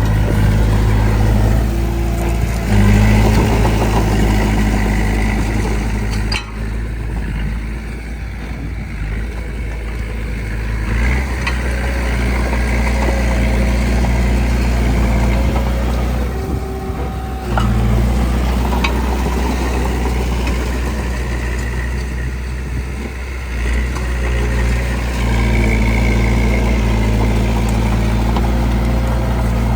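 Heavy diesel engines of earthmoving machinery running, the engine note steady between several abrupt shifts in pitch and loudness.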